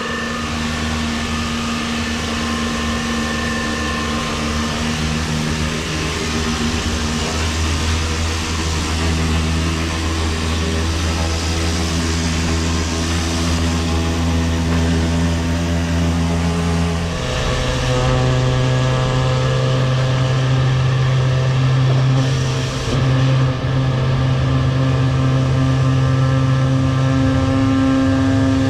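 Engine and high-pressure pump of a sewer-jetting unit running steadily under load, with a hiss over the engine note. The engine note changes to a different pitch about two-thirds of the way through.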